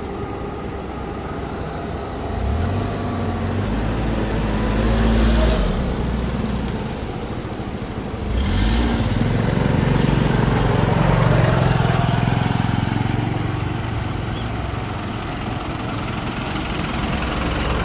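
Road vehicles driving past, their engines pulling away: one passes a few seconds in, and a louder one accelerates with rising engine pitch from about halfway, then fades.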